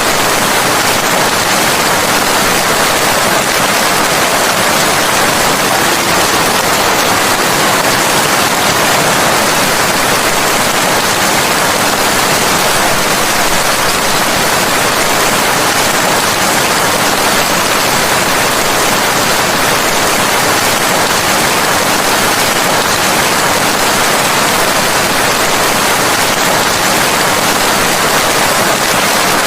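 Steady rain, a dense even hiss that holds at the same level throughout.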